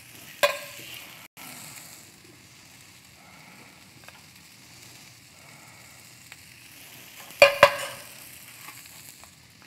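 Corn, peas and red pepper sizzling steadily in a sauté pan over a gas flame. A metal utensil clinks once about half a second in, and twice in quick succession near the end, each clink briefly ringing.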